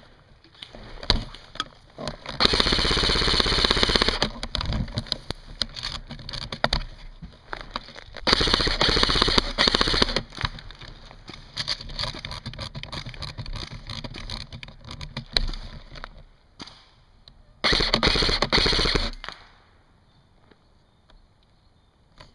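Airsoft electric gun firing full-auto in three long bursts of rapid shots, the first about two seconds in, the next about eight seconds in and a shorter one near the end, with lighter scattered fire in between.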